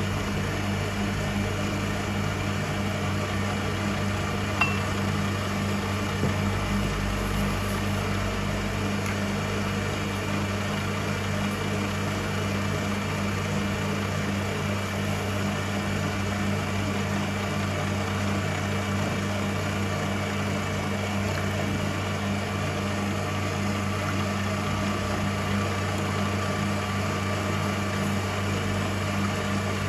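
A steady low machine hum, with two short faint knocks about five and six seconds in.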